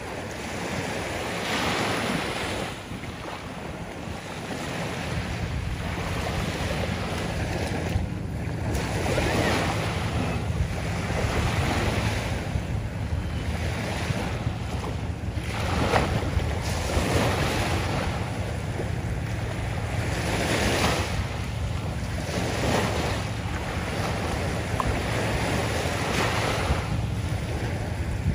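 Small waves washing up and draining back over a sandy shore, each wash swelling and fading every few seconds, over a steady low rumble of wind on the microphone.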